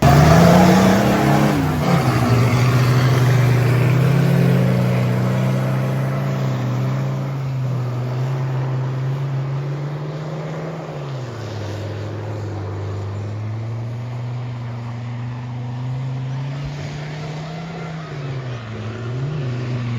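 A 4x4's engine revving hard during a mud drag run. It comes in suddenly and climbs steeply, drops back briefly, then stays at high revs with a couple of dips, growing slowly fainter as the vehicle moves away.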